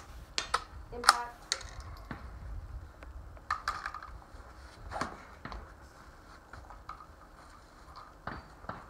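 Scattered clicks and knocks of a rifle and shooting gear being handled as the shooter gets off a folding chair and moves into a prone position, with a sharper knock about a second in.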